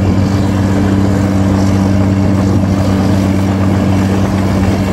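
Caterpillar D6R bulldozer's diesel engine running steadily under load as the dozer pushes soil with its blade.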